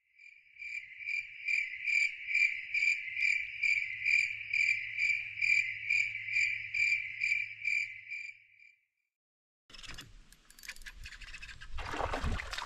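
Cricket chirping, a steady high trill pulsing about twice a second that fades out after about eight seconds, with a faint low hum under it. After a second of silence, outdoor noises with clicks and rustling start and grow louder near the end.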